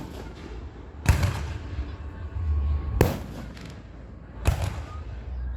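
Three sharp, loud bangs spaced a second and a half to two seconds apart, each with a short ringing tail, over a steady low rumble.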